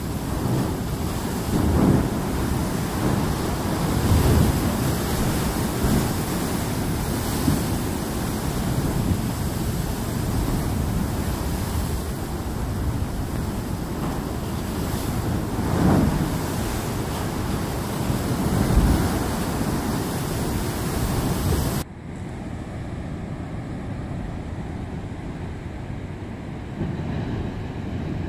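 Heavy ocean surf surging into limestone chasms and blowholes, with wind buffeting the microphone, and several heavier surges swelling up through the noise. About three-quarters of the way through it cuts abruptly to a quieter, steady sound of distant surf.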